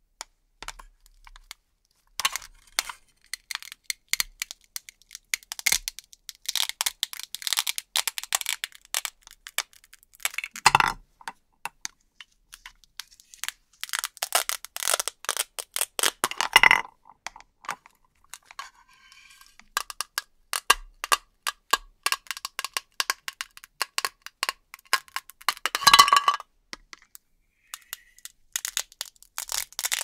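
Velcro ripping apart in a series of separate crackling tears as toy plastic vegetables are cut off a plastic plate with a knife, with a few sharper knocks among them.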